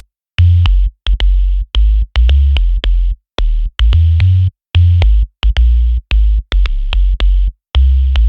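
Electronic music: a drum-machine beat with deep bass and hi-hat ticks, chopped into short stuttering bursts that cut in and out with abrupt silences between them.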